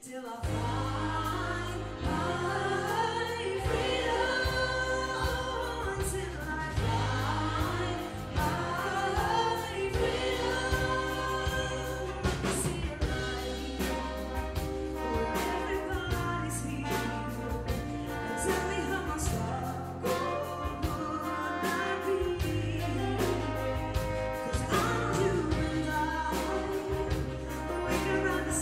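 Live gospel-pop song performed by a female lead singer with a group of backing singers over a big band. A strong, steady bass line runs under the voices and the beat ticks through. The music starts abruptly at the outset.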